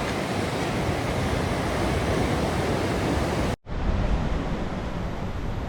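Steady roar of rushing water at Niagara Falls, a dense even rush. About three and a half seconds in it cuts off for an instant and comes back with less hiss and more low rumble.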